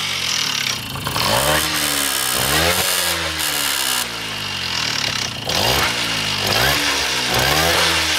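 Tomos moped's two-stroke engine running and being revved repeatedly, its pitch climbing and dropping back several times. It runs with the air filter off and a new small-bore exhaust fitted, part of restricting the moped back to its legal speed.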